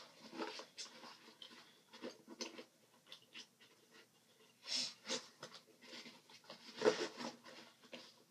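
Handling noise as a grenade is worked into an ALICE ammo pouch's grenade pocket: irregular rustling and scraping of the pouch fabric and webbing with scattered clicks and knocks. A couple of louder scuffs come about five and seven seconds in, with a few breaths of effort.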